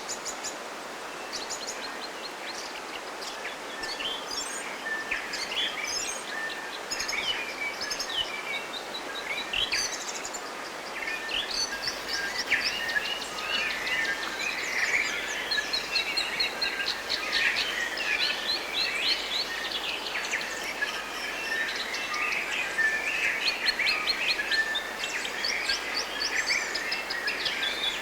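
A chorus of many forest birds chirping, trilling and calling over one another, growing busier about halfway through, over a steady background hiss.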